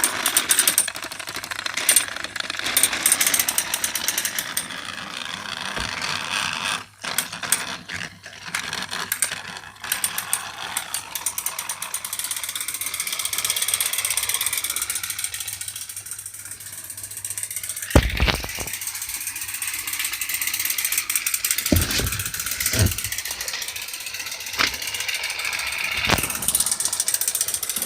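Battery-powered TrackMaster toy train running on plastic track, its motor and gears whirring with a steady clicking clatter. Several sharper knocks come in the second half.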